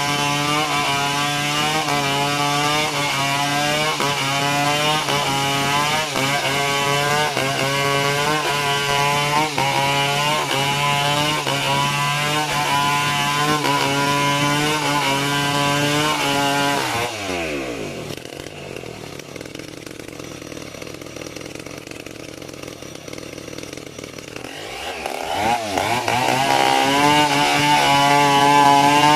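Two-stroke chainsaw cutting wood at full throttle. About seventeen seconds in the throttle is released and the engine drops to a quieter idle, then about eight seconds later it revs back up to full speed.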